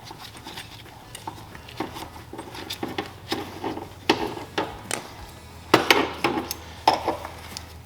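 Metal clinking and knocking from the steel parts of a brake-line flaring tool being handled and set up around the tubing, with a few sharper clacks in the second half.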